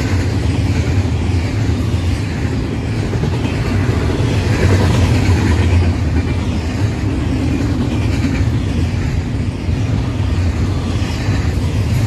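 Union Pacific double-stack intermodal train's well cars rolling past on the rails, a steady low rumble.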